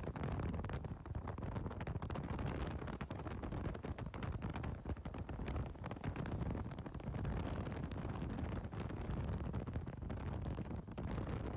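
Strong storm wind buffeting the phone's microphone: a continuous low rumble with frequent crackles.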